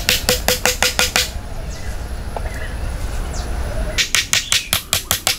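Quick, sharp knocks of a hatchet striking a wooden stake, about five blows a second, each with a short ringing tone. The blows stop a little after a second in and start again about four seconds in.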